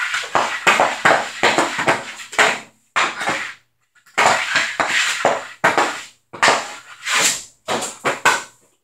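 CCM Heat street hockey stick blade clacking against the ball and the hard floor while stickhandling: rapid, irregular taps, many a second, broken by a few short pauses.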